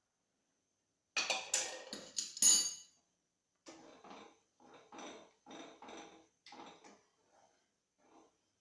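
A metal spoon clattering sharply against a bowl and cooking pan as dissolved milk powder goes into the simmering milk, followed by softer, even strokes of the spoon stirring in the pan, about two a second.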